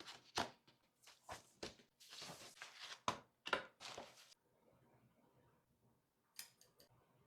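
Keys of a mechanical keyboard being pressed one at a time, a string of sharp clacks for about four seconds, then a quick burst of three or four clicks near the end.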